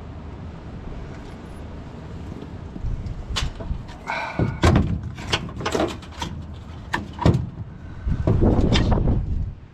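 A run of sharp knocks and clicks as metal parts and tools are handled in a rooftop HVAC unit, over a low rumble that swells near the end.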